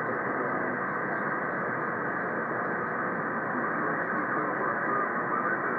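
Single-sideband radio receiver tuned to the RS-44 satellite's 70 cm downlink, giving steady band-limited hiss with no strong station coming through: the pass is quiet.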